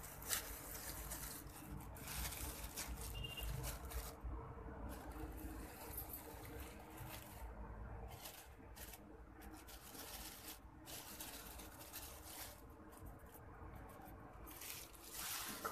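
Plastic bag crinkling and rustling faintly in the hands as ground turmeric is tipped out of it into a plastic spice-box compartment, with scattered small clicks of handling.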